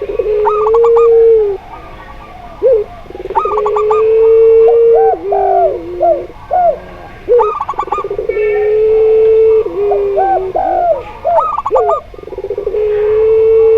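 Zebra dove, spotted dove and ringneck dove calling together. Long, steady, low coos come round about every four seconds, with quick clusters of higher staccato notes and shorter coos that bend up and down in between.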